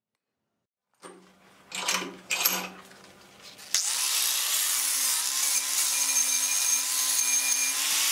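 Two sharp knocks, then an electric power tool in a metalworking shop cuts in suddenly about halfway through and runs steadily with a high whine over a loud rushing noise.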